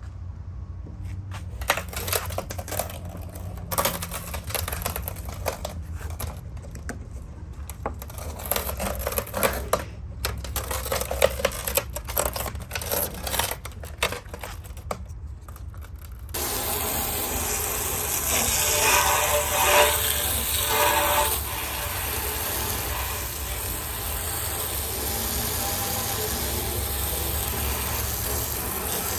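Scattered knocks and clatter of things being handled. About sixteen seconds in, water starts spraying with a steady, louder hiss that continues.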